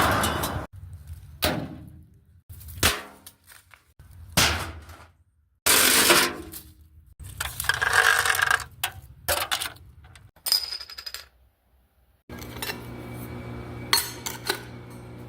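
A run of separate metal sound effects, each cut short: single clanks on metal that ring on as they fade, a scraping stretch, a cluster of rapid metallic hits, and a brief metallic rattle with a high ringing tone.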